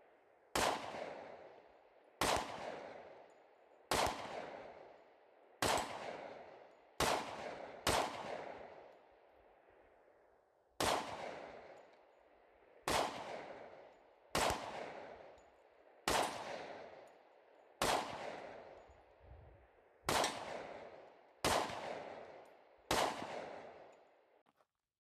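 Glock 20 10mm Auto pistol firing slow, single aimed shots, fourteen in all, about one every one and a half to two seconds with a short pause partway. Each shot cracks and then echoes away over a second or more.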